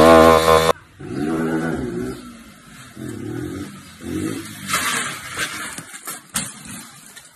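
Motorcycle engine revved in quick throttle blips, cut off under a second in. Then a motorcycle engine revving with rising and falling pitch during a wheelie, with a sharp knock about six seconds in.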